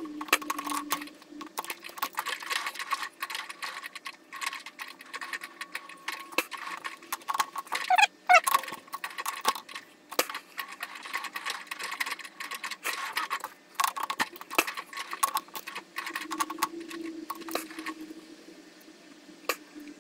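Irregular light metallic clicks and taps from a four-jaw lathe chuck being worked by hand: the jaws adjusted and the chuck turned while a part is centered against a dial test indicator. A faint steady hum runs underneath.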